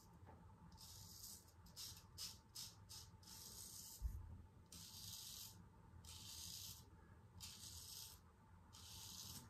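A 6/8 full-hollow Damascus steel straight razor scraping through one day's stubble on lathered skin, in faint rasping strokes: a run of quick short strokes about two seconds in, then longer strokes roughly once a second, cutting easily. A soft low bump comes near the middle.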